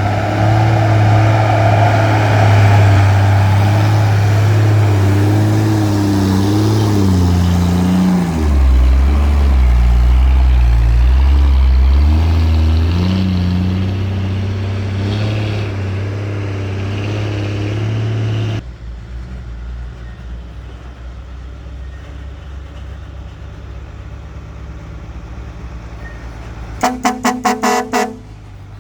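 A dump truck's diesel engine runs hard under load. Its pitch drops low about eight seconds in and comes back up a few seconds later. The sound falls away abruptly to a quieter engine running, and near the end a horn gives a quick run of about six short toots.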